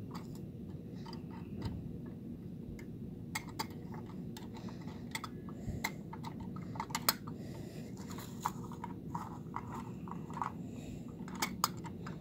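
Irregular small plastic clicks and taps from a KDW 1/34-scale toy garbage truck as its front-loader arms and toy dumpster are worked by hand, over a steady low hum.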